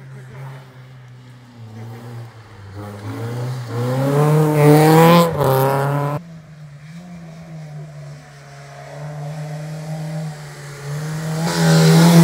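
Two hill-climb race cars accelerating hard uphill past, one after the other. Each engine climbs in pitch and loudness as the car nears. The first cuts off suddenly about six seconds in, and the second builds from about nine seconds and is loudest at the end.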